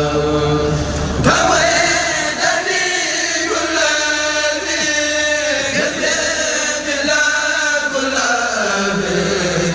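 Men chanting an Arabic religious poem together, a Mouride khassida, in long, drawn-out sung phrases that glide in pitch; a new, louder phrase begins about a second in.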